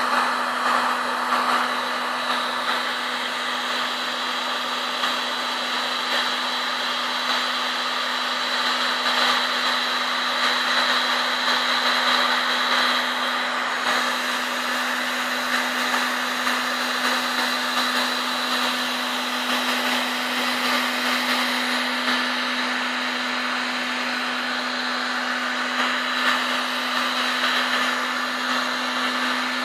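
Heat gun running steadily, its fan blowing hot air: an even rushing noise with a steady hum and a faint high whine.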